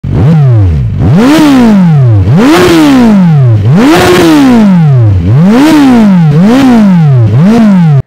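2018 Kawasaki Z1000R's inline-four engine revved hard at a standstill: about seven quick throttle blips, each rising sharply in pitch and falling back. The first blip is lower than the rest, and the engine is loud throughout.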